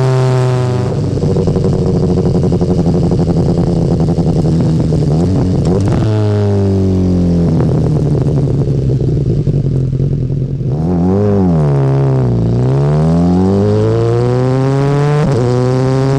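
BMW S1000R's inline-four engine running through its stock Akrapovic exhaust under riding, the note rising and falling with rough throttle changes. The pitch drops at the start, holds steady, then dips and climbs again around the middle and rises once more near the end.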